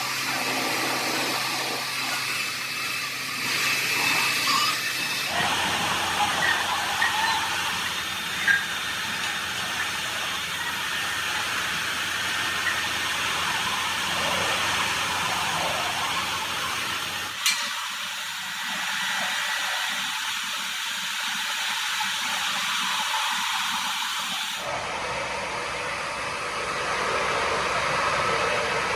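Steady hissing workshop noise, changing abruptly about 5, 17 and 25 seconds in, with one sharp click near the middle.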